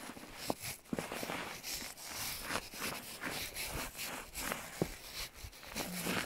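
Footsteps in deep snow: boots sinking into it and crunching, one step after another.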